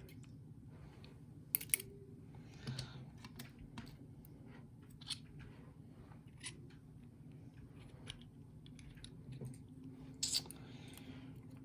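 Small sharp metal clicks and short scrapes of lock pins and springs being worked out of a pin-tumbler lock cylinder as it is taken apart. The loudest clicks come about a second and a half in and near the end.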